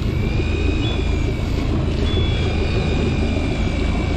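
A boat's motor running steadily: a low drone with a faint high whine above it.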